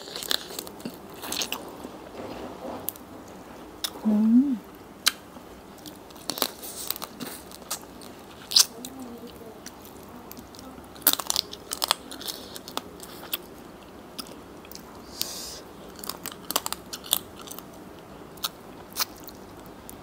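Close-up eating sounds of a spicy Thai seafood salad with raw shrimp and blue crab: biting and chewing, with many sharp clicks and short crunches scattered irregularly throughout. A brief hummed "mm" about four seconds in, and a fainter one near nine seconds.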